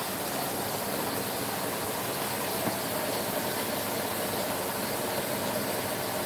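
Steady sizzling hiss of chicken back pieces frying in oil in a pan.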